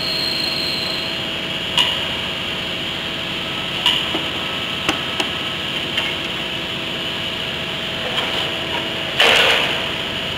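Steady mechanical hum with a few sharp knocks and clinks as a heavy steel grain-dryer trunnion roller is lowered from a forklift onto wooden blocks. A brief, louder scrape comes near the end.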